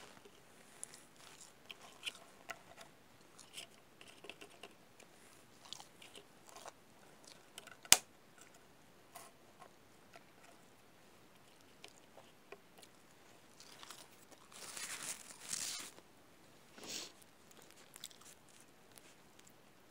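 Quiet, close-up chewing and small mouth clicks of someone eating french fries. One sharp click about eight seconds in, and a brief noisy rustle about fifteen seconds in.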